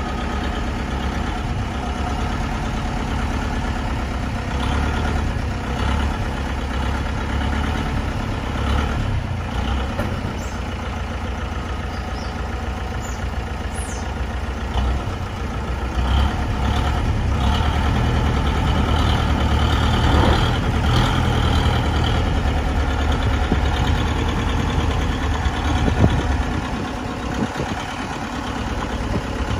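Bedford TK lorry's engine running at low revs as the truck reverses slowly, its note swelling for several seconds in the middle and easing off near the end. A single sharp knock comes just before it eases.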